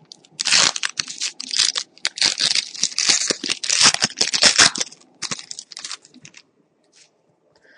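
A hockey trading-card pack's wrapper being torn open and crinkled for about five seconds, followed by a few lighter rustles.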